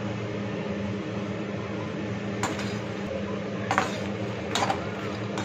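A perforated metal slotted spoon turning fox nuts (makhana) roasting on low heat in a little ghee in a small aluminium kadhai, clinking against the pan three times over a steady low hum.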